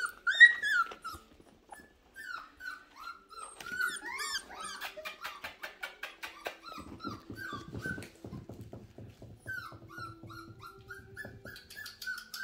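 Puppy whimpering: a long run of short, high, bending whines, several a second, with a stretch of rapid low rustling in the middle.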